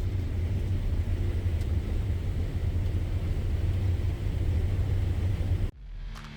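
Heavy farm machinery running steadily with a low engine rumble that cuts off suddenly about five and a half seconds in.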